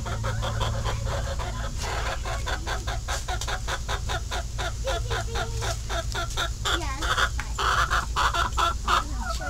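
Chickens clucking: many short calls in quick succession from several hens, getting louder near the end as the birds come close. A steady low hum runs underneath.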